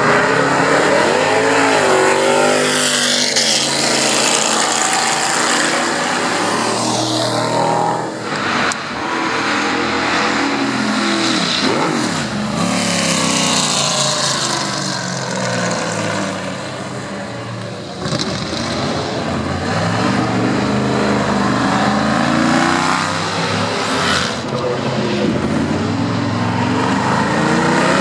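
Historic Can-Am sports-racing cars passing at speed one after another, their big racing engines rising in pitch as they accelerate and falling away as they go by.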